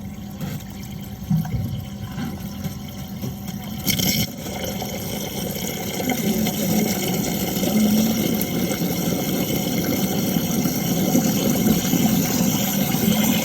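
Household electric water pump switched on, its motor humming steadily while water rushes through the pipes, the rushing growing louder from about six seconds in.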